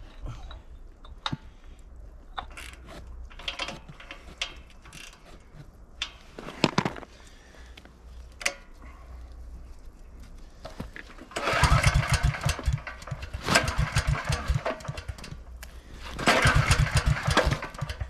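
Clicks and knocks of parts and tools being handled, then a portable generator's small engine cranked over three times without catching, each try a short spell of fast chugging. The carburetor float bowl has just been cleaned and needs a moment to fill with fuel.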